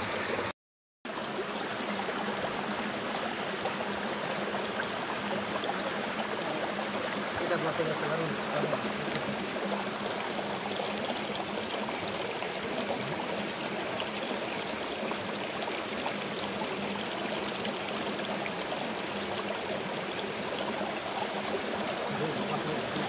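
Mountain stream rushing steadily over rocks and a small cascade. The sound cuts out completely for a moment about half a second in.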